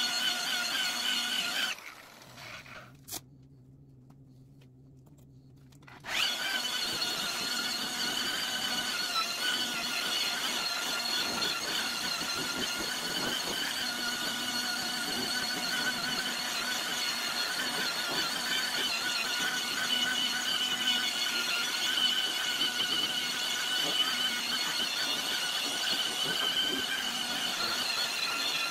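Electric rotary polisher running with a steady high whine as its foam pad buffs plexiglass toward a clear, glass-like finish after wet-sanding. The whine cuts out about two seconds in and comes back abruptly about six seconds in.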